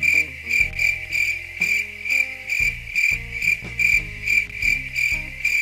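Cricket-chirp sound effect, a very regular high chirp repeating nearly three times a second, laid over background music with slow held bass notes: the stock 'awkward silence' gag.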